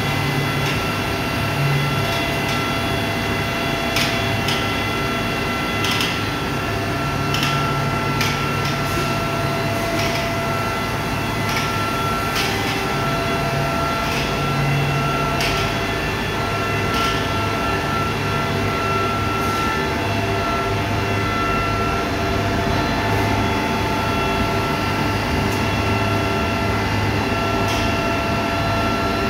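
Steady machinery noise of a running micro-pellet strand pelletizing line, a low hum with several steady tones, broken by irregular sharp clicks mostly in the first half.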